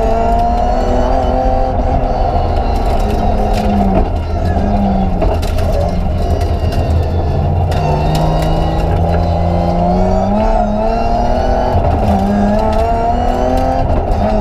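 BMW 325 Group A rally car's straight-six engine heard from inside the cabin at full effort, its revs repeatedly climbing and then dropping sharply as the car is driven hard along the stage.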